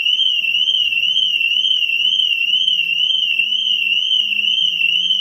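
Retrofitted anti-theft car alarm siren sounding continuously, a loud high-pitched tone warbling up and down about four times a second. The alarm has been triggered by opening the door without the remote, and the siren keeps going until the original key is used.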